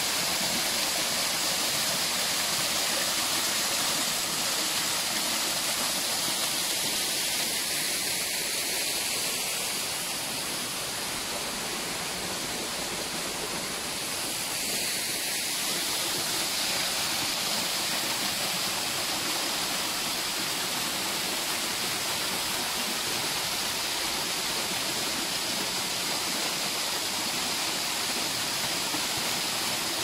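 Small waterfall splashing down a stepped rock face: a steady rushing hiss of falling water, dipping slightly in loudness for a few seconds about a third of the way in.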